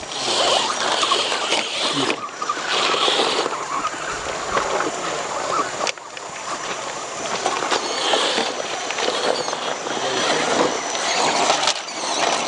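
Radio-controlled rock crawler's electric motor and gears whining as it crawls over rock, with irregular scraping and crunching from the tyres and chassis on the stone.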